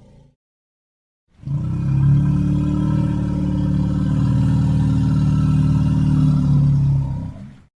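African forest elephant giving one long, low rumbling call of about six seconds, starting after a second of silence and fading away near the end.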